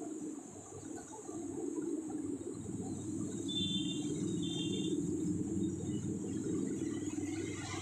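Railway flat wagons rolling slowly past: a steady low rumble and clatter of steel wheels on the rails, growing louder about a second and a half in and holding.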